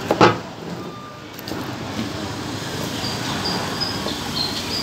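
Meat cleaver chopping boiled chicken on a wooden chopping block: one loud chop just after the start, then a few lighter knocks, over steady background noise.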